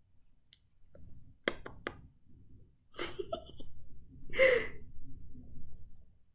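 A woman laughing softly under her breath: a few breathy chuckles from about halfway through, the strongest a little later. A few short clicks come before them.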